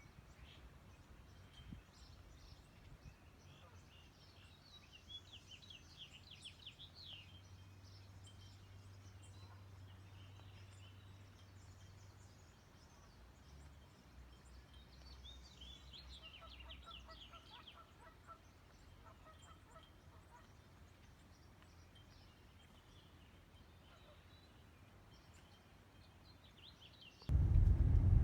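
Faint outdoor ambience with wild birds calling in two short flurries of quick chirps and trills over a low steady hum. Near the end a much louder low rumble of a vehicle cuts in suddenly.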